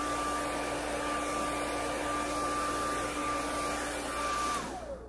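Handheld hair dryer blow-drying hair, blowing steadily with a constant whine. It is switched off about four and a half seconds in, and the whine falls as the motor spins down.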